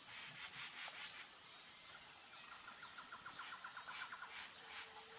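Faint nature ambience: a steady high insect-like hum, with a short rapid bird trill about halfway through.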